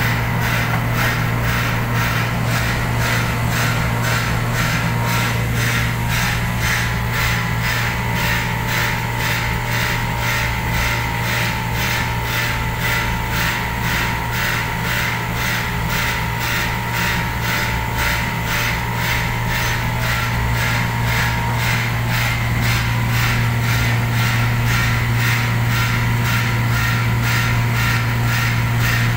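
A motor running steadily with a low hum and a faint, quick, regular pulsing above it.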